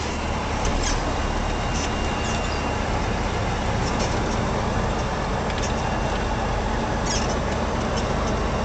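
Steady engine and road noise heard from inside a moving car's cabin, a low drone with a few light ticks.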